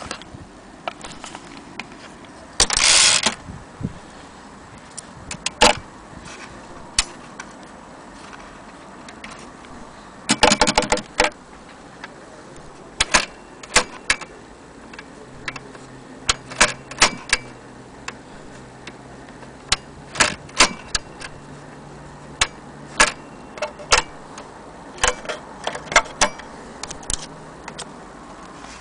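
1930 Imperial Companion portable typewriter being typed on: irregular single key strikes. Two short, rapid rattling runs come about three seconds in and again about eleven seconds in.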